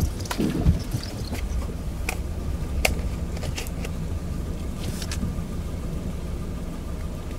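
Steady low rumble of a car idling, heard from inside the cabin, with scattered sharp taps of raindrops on the windshield and a soft thump in the first second.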